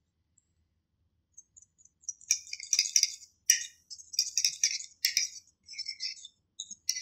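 A metal fork stirring cake batter in a ceramic mug, clinking and scraping against the mug's sides in quick, irregular strokes. The stirring starts about two seconds in.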